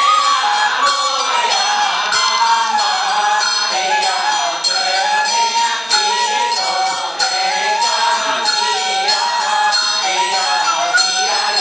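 Taoist ritual chanting, a melody sung in held, stepwise notes, over a steady metallic beat of small bells or cymbals struck about two to three times a second.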